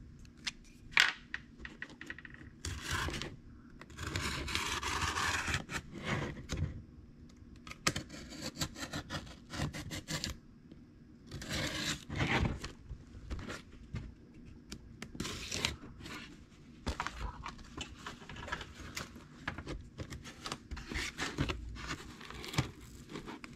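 Cardboard shipping box being opened by hand: a hobby knife scraping and cutting through packing tape, with cardboard rubbing and tearing and irregular knocks as the box is turned over. The scrapes come in uneven bursts, the longest about four to six seconds in.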